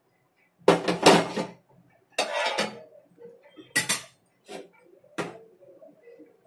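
Metal kitchen utensils clattering and knocking in five short bursts, the loudest about a second in.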